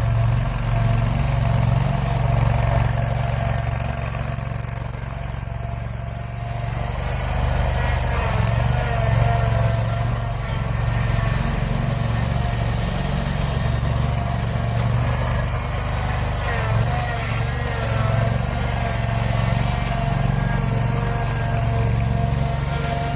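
Engine of a Scag Turf Tiger zero-turn mower running steadily while it pushes a snow plow. It eases off a little a few seconds in, then comes back up.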